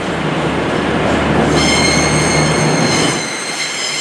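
Class 222 Meridian diesel-electric multiple unit pulling out. Its diesel engines run with a low drone that drops away about three seconds in. About a second and a half in, a high-pitched, many-toned wheel squeal sets in and holds.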